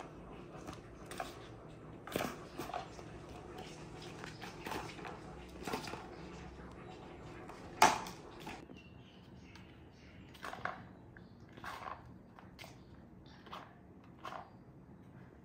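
Light plastic clicks and knocks as a kitten bats at a ball-track cat toy, its balls rattling around the plastic track. One sharp knock about eight seconds in is the loudest.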